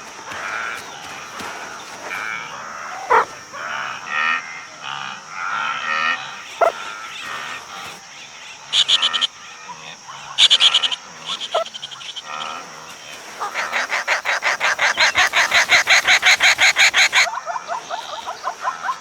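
Natural soundscape of wild animal calls: a steady high insect drone under many short, varied chirps and calls, then near the end a fast pulsed croaking call, about eight pulses a second, lasting around four seconds.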